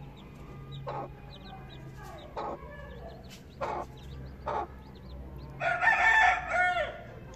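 Gurk hen clucking to her chicks with the chicks peeping; about six seconds in comes a loud drawn-out chicken call, over a second long, ending on a falling tone.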